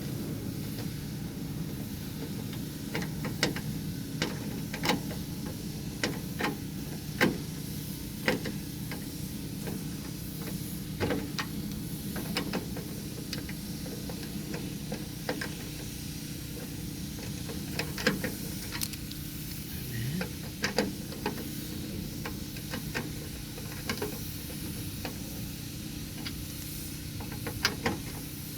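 Irregular light clicks and small knocks of screws being driven by hand into a plastic interior door handle, over a steady low hum.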